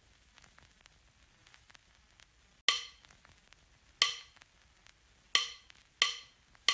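After a near-silent start, five sharp percussion strikes in an uneven rhythm, each ringing briefly: the percussive opening of background music.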